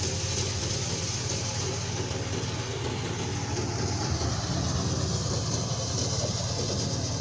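Wheat thresher machine running steadily, its engine drive and threshing drum making a continuous mechanical din.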